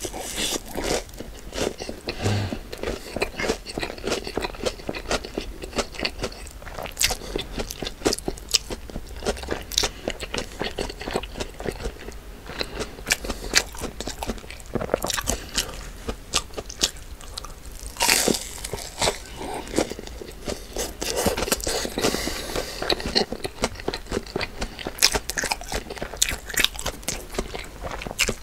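Close-miked eating: a person biting and chewing crunchy food, a steady, irregular run of crisp crunches.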